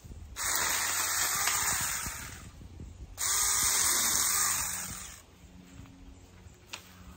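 Saker mini cordless electric chainsaw running in two bursts of about two seconds each, the second starting about three seconds in, as it cuts through brush stems.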